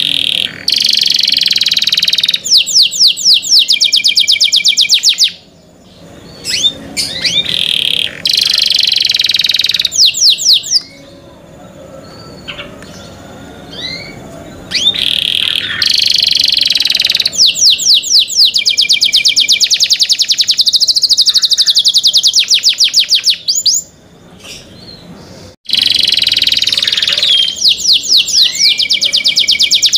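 Domestic canary singing: long phrases of fast trills and rolling runs of rapidly repeated high notes, broken by a few short pauses.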